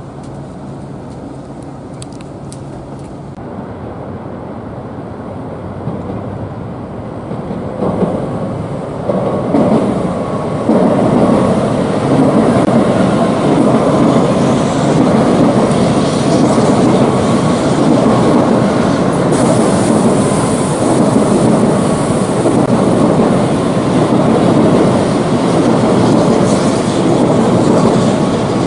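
Tokaido Shinkansen train running: a rushing, rumbling noise that builds over about the first ten seconds, then holds steady and loud.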